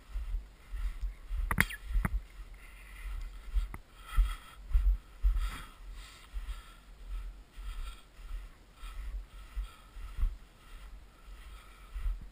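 Footsteps in snow, a rhythmic tread with a low rumble of wind on the microphone and a sharp click about a second and a half in.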